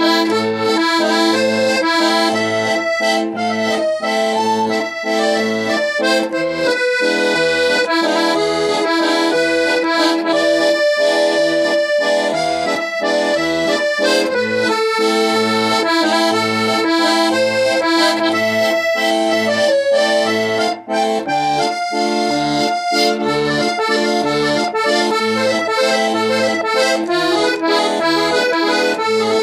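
Piano accordion played solo: a waltz melody on the treble keyboard over a steady, regularly repeating bass-and-chord accompaniment from the bass buttons.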